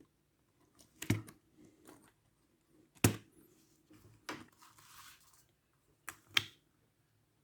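Light plastic clicks and knocks from handling a netbook as its keyboard is lifted off, five in all, the loudest about three seconds in and near the end, with a brief scraping slide between them.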